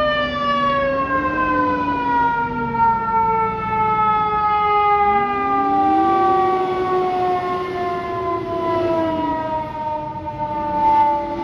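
Fire engine siren, having risen steeply just before, winding slowly down in pitch throughout. A lower wavering tone runs underneath and rises about halfway through.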